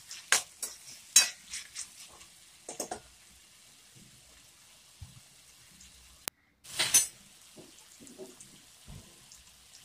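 Metal spoon scraping and clinking against a kadai while diced potatoes and onions are stirred in hot oil. There are several sharp scrapes in the first three seconds and another loud one about seven seconds in, with faint frying between them.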